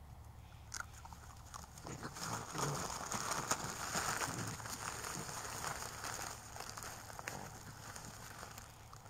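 Irregular crunching and crackling from an unseen source, with a sharp click about a second in, building to a dense patch in the middle and tapering off near the end. The recordist presents it as a sasquatch eating.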